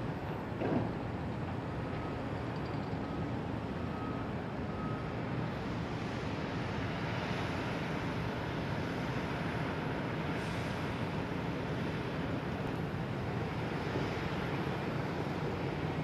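Steady outdoor rumble of distant city traffic and machinery, with wind on the microphone.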